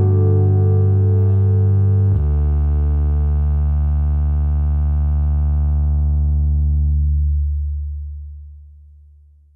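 Background music: a held chord changes to a new chord with a deep bass note about two seconds in, rings on, and fades out near the end.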